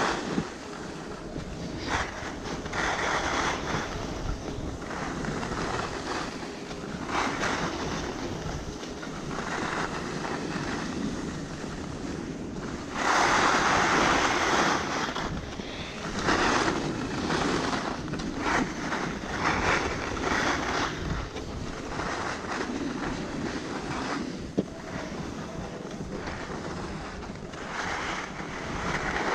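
Edges hissing and scraping over packed snow on a fast downhill run, with wind rushing over the microphone. The scraping swells in surges as turns are carved, the loudest about halfway through. There is a single sharp click a little later.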